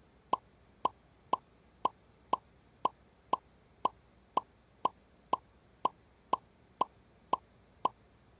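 Quiz-show sound effect: a short electronic blip repeating evenly about twice a second, each one marking a letter dropped from the alphabet strip and revealed on the answer board.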